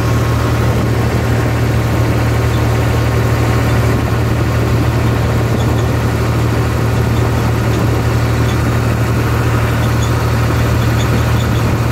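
A New Holland tractor's diesel engine running steadily, a constant low drone.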